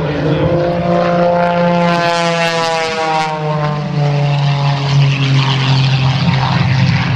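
Modified Pitts Special aerobatic biplane's piston engine and propeller running at high power in a low, fast pass; the pitch drops about three seconds in as the plane goes by.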